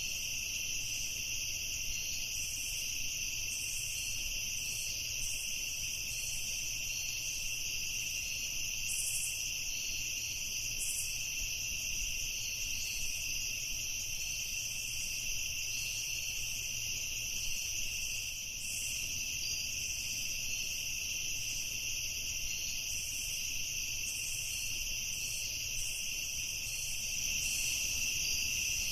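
Night chorus of crickets trilling steadily and continuously, two overlapping high-pitched layers, over a faint steady low rumble.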